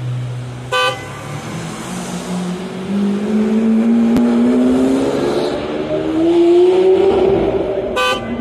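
Sound-effect soundtrack from an outdoor projection show's loudspeakers. A short toot comes about a second in. A pitched tone then slides slowly upward for several seconds, loudest near the end of the climb. A second short toot closes it.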